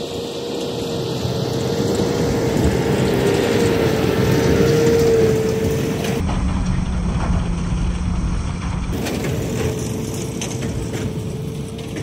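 A John Deere tractor pulling a New Holland big square baler while baling, its engine running under load and the baler's pickup and plunger working, with a steady whine over the machinery noise. The noise swells as the outfit passes close, then the sound changes abruptly about halfway through.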